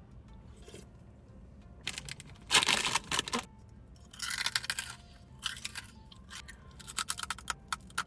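Irregular bursts of crackling and crunching from snacks being handled and eaten close to the microphone, loudest about two and a half to three and a half seconds in.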